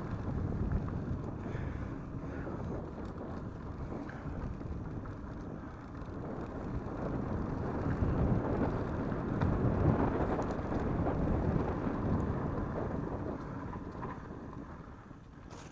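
Wind buffeting the microphone over the rumble of mountain bike tyres rolling fast on a dirt trail. It grows louder about eight seconds in and eases off near the end.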